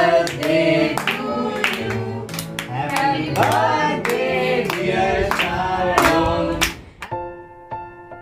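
A small group of young people singing together in chorus and clapping in time. About seven seconds in the singing cuts off and soft piano notes take over.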